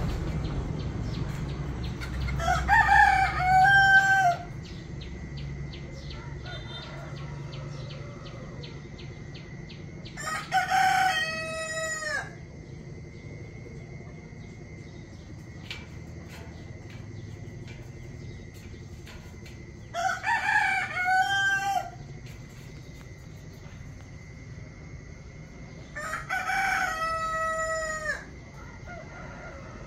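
A rooster crowing four times, each crow lasting about two seconds, spaced several seconds apart.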